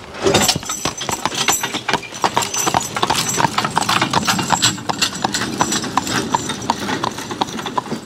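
Draft horse walking on a paved road, its hooves clip-clopping steadily on the asphalt as it pulls a forecart and a loaded flatbed wagon past.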